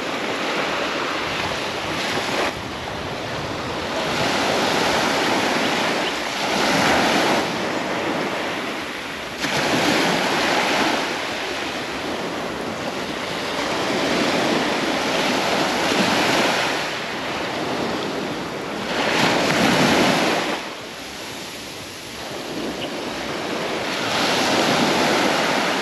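Surf breaking and washing up a sandy beach: a rushing noise that swells and ebbs every few seconds as each wave comes in.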